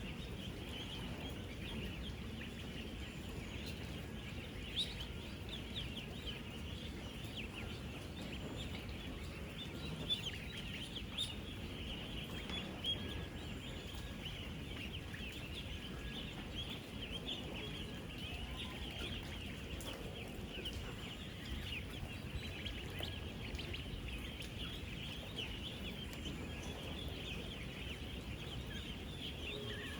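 A large flock of ten-day-old ducklings peeping nonstop in a dense, shrill chorus of thousands of overlapping calls, over a low steady background noise, with a few sharp clicks in the first half.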